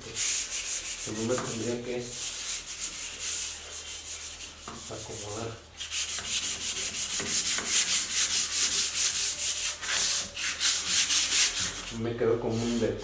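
Sandpaper rubbed by hand over the dried sealer coat on a wooden nightstand, in quick back-and-forth strokes, with a brief pause about six seconds in. This is a light sanding between finish coats.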